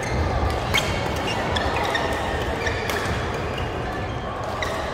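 Badminton rackets striking the shuttlecock: two sharp hits about two seconds apart, echoing in a large sports hall. Short squeaks from shoes on the court floor sound between the hits.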